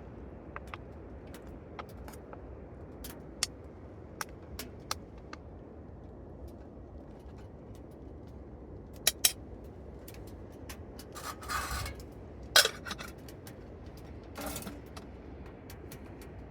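Wood fire crackling in a stainless steel wood stove: irregular sharp pops over a low steady rush, with two brief louder rustling hisses about eleven and fourteen seconds in.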